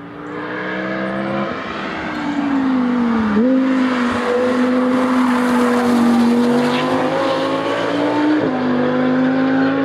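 Audi R8 prototype's V10 engine on a circuit lap, the car approaching and passing. The engine note falls as it slows for the bend, then jumps up sharply with a downshift about three seconds in. It climbs steadily under acceleration, and a quick upshift near the end drops it suddenly.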